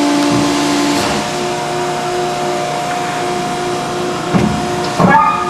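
Hydraulic power unit of a Selco HS-12HD horizontal baler running: a 20-hp three-phase electric motor driving the hydraulic pump, with a steady hum and whine over a hiss. About a second in, the pump's tone shifts as the load changes. Near the end come two short louder sounds, the second with a quick rising whine.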